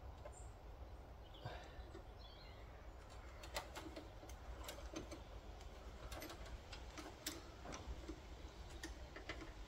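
Small irregular metallic clicks and ticks from a brake-pipe flaring tool being tightened and handled on a copper brake line, coming more often from about three and a half seconds in.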